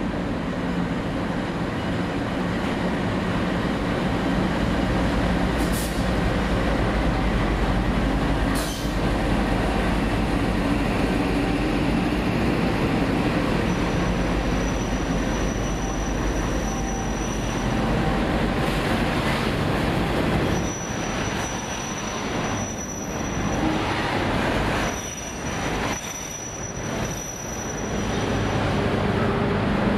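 NR class diesel-electric locomotive and its stainless-steel passenger carriages rolling past the platform: a steady low engine and wheel rumble with a few sharp clicks early, then a thin high wheel squeal coming and going from about halfway through as the carriages pass.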